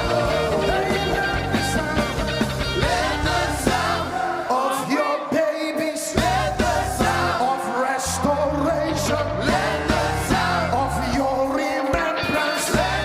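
Worship music with singing over a band's bass and drums.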